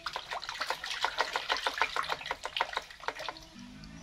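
Water splashing in a plastic bath basin: a quick run of small splashes, about seven a second, as the water is paddled and slapped, easing off near the end.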